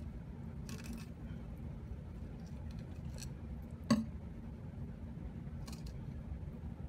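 A kitchen knife scraping in a few short strokes along a pike conger fillet on a wooden cutting board, with one sharp knock about four seconds in, over a steady low hum.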